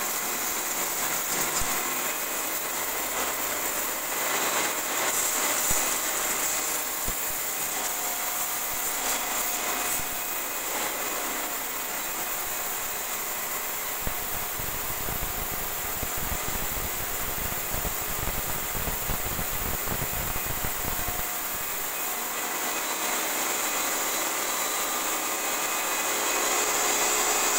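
Lakoni pressure washer running steadily, its motor whining under the hiss of the water jet spraying against tiles. For several seconds past the middle, the spray noise turns rougher and fuller.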